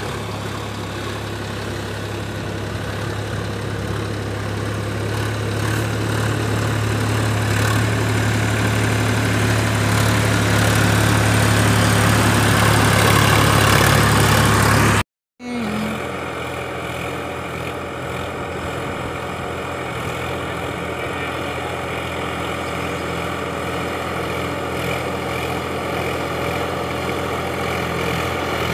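Sonalika DI 745 III tractor's three-cylinder diesel engine running steadily under load while driving a rotavator through a flooded field. It grows louder as the tractor passes close, cuts out briefly about halfway through, then carries on steady and quieter from farther off.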